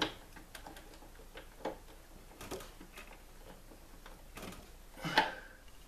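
Scattered small clicks and ticks of a screwdriver and stranded wires being worked in the wire lugs of a WFCO 8955 power center as the lug screws are tightened, the loudest a short clatter near the end.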